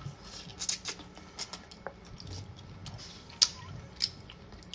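Close-up mouth sounds of eating spaghetti: slurping noodles and chewing, with scattered wet clicks and smacks. The sharpest click comes about three and a half seconds in.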